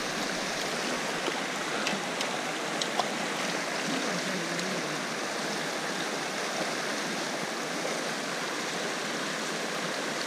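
River flowing: a steady rush of water, with a few faint clicks about two to three seconds in.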